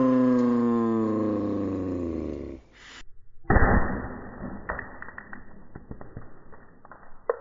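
A loud pitched tone with many overtones slides slowly downward and cuts off, like an edited-in effect. Then a sudden loud pop from the gas-powered airsoft 40mm grenade launcher is followed by scattered light clicks and ticks as its load of BBs strikes.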